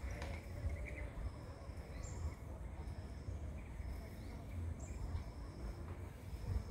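Outdoor ambience: a high insect call repeating about once a second, with a few short rising chirps over a steady low rumble.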